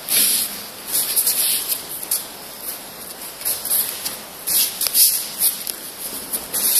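Cloth of gi and hakama swishing and bare feet sliding on the mats as aikido partners move through a throw and a roll. It comes as a run of short hissing rustles, the strongest at the start and about five seconds in.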